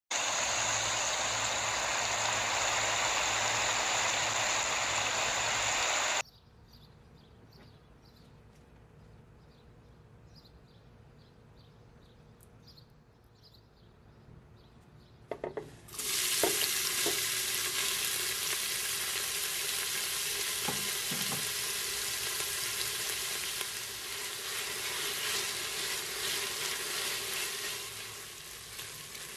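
Chopped onion sizzling as it fries in hot oil in a stainless-steel pressure cooker, stirred with a spatula. The sizzle starts suddenly about halfway through, right after a few knocks, following a quiet stretch. The first six seconds hold a different loud, steady hiss.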